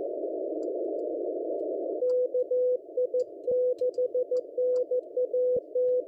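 Morse code (CW) heard through a radio receiver: a steady tone keyed in dots and dashes spelling out 'test', starting about two seconds in. It rises above a constant band of hiss from a narrow 500 Hz CW filter. This is the operator's own signal, sent at a reduced 50 watts and still copyable above the noise.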